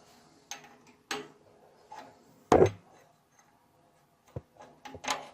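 A handful of separate knocks and clunks of metal parts as a home-made crank handle is slid onto its shaft and tried for fit. The loudest, heavier clunk comes about halfway through.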